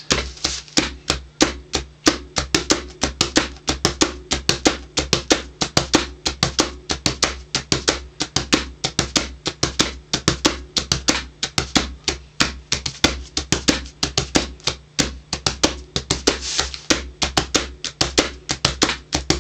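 Hands drumming a steady, fast rhythm on a cardboard box played as a hand drum, layering slaps and taps into a repeating beat, several strikes a second.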